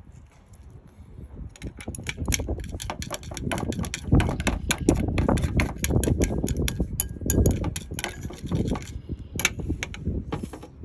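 Chopsticks beating shrimp paste (mắm tôm) with lime juice in a ceramic bowl: rapid, irregular clicking of the chopsticks against the bowl, starting about a second and a half in and easing off near the end, over a low rumble.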